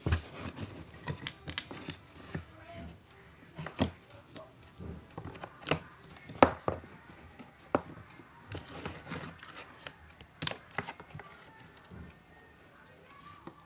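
Irregular clicks, taps and knocks from hands handling wires and a small plastic rocker switch against a wooden panel, with light rustling in between.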